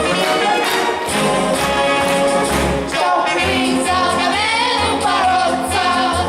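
Singing over an orchestral accompaniment; the voice comes in strongly about three seconds in with long, wavering held notes.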